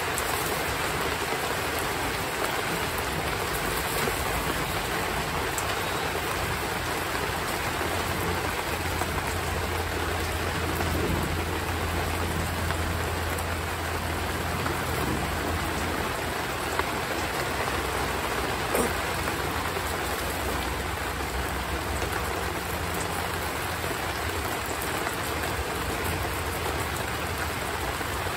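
Heavy rain falling steadily, an even hiss with scattered drop patter. A low rumble runs underneath for several seconds in the middle.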